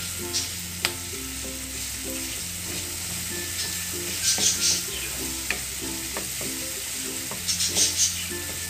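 Onion and tomatoes sizzling in a frying pan while a wooden spatula stirs and scrapes them, with louder scraping strokes about halfway and near the end and a couple of sharp knocks of the spatula on the pan. Soft background music with a steady bass line plays underneath.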